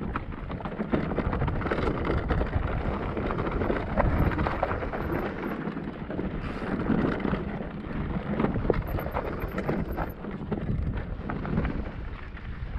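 Cube Stereo Hybrid 160 electric mountain bike riding down a rough trail: tyres on dirt and stones, with many short knocks and rattles from the bike and wind rumbling on the microphone.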